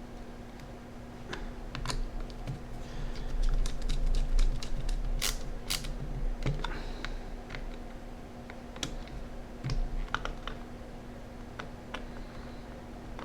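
Irregular small clicks and taps of the plastic case of a Sharp Zaurus handheld computer being handled and its small screws fitted, with duller low bumps about a third of the way in.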